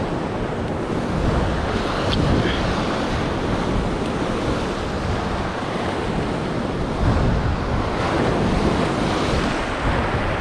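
Waves breaking and washing up a beach, with wind buffeting the microphone; the level swells and eases slowly.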